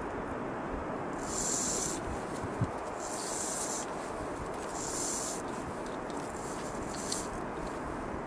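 Wind rushing steadily over the microphone, with three short bursts of high hiss a second or so apart and a fainter one later.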